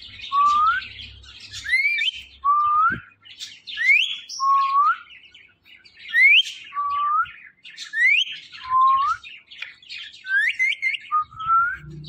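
Indian ringneck parrot repeating a two-note call about every two seconds, a high rising note then a lower rising one: its imitation of a cat's meow. Fainter scattered chirping behind it.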